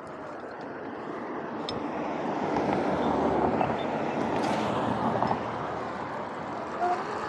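Wind rushing over the microphone and tyre noise from an electric dirt bike riding along, growing louder over the first three seconds or so as it gathers speed, then holding steady.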